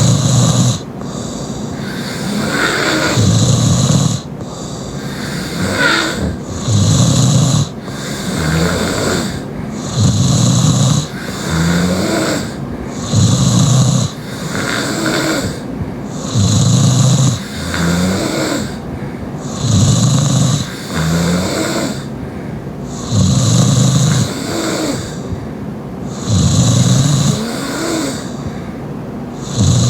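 Loud open-mouthed snoring from a sleeping young woman. A rough snore comes about every three seconds, with softer breathing sounds between the snores.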